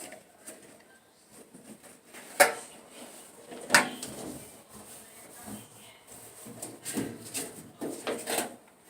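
Knocks and clatter of hands working on parts of an opened clothes dryer: two sharp knocks about two and a half and four seconds in, then a run of smaller knocks near the end.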